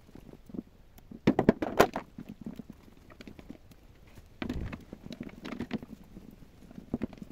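Pepper pulp being pushed and scraped through a fine kitchen sieve, with irregular taps and knocks. The strokes come in clusters, loudest about a second and a half in and again a few seconds later.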